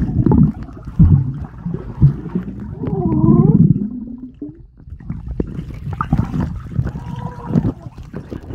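Muffled sound of a swimming pool heard through a submerged camera: water moving and thudding, with heavy thumps about one and two seconds in and a short muffled wavering voice about three seconds in. Brighter splashing comes in over the last few seconds.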